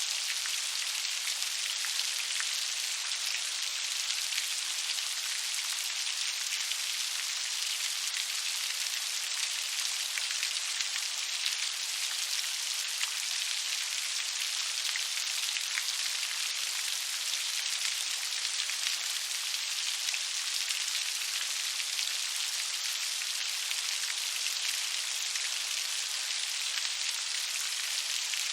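Steady rain: an even hiss of many small drops pattering on a surface.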